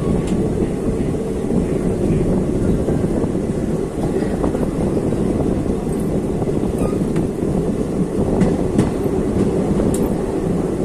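Passenger train coach running along the track, heard from its open doorway: a steady rumble of wheels on rail, with a few light clicks in the second half.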